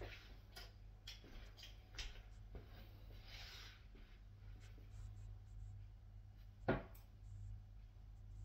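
Darts being pulled out of a bristle dartboard with a few light clicks, then a steel-tip dart striking the board with one sharp thud about three-quarters of the way through.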